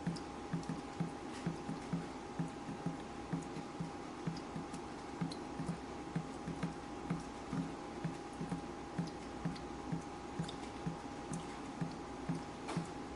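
Water dripping steadily, about two to three drops a second, each a low plop, with a few fainter sharp ticks in between over a faint steady hum.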